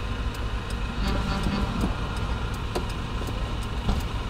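Car engine hum heard from inside the cabin as the car rolls slowly, with a light ticking about three times a second.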